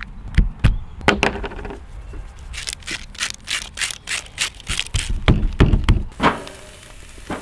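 Raw chicken breasts being handled and seasoned by hand on a table: soft thumps and rubbing, with a run of quick, sharp ticks through the middle.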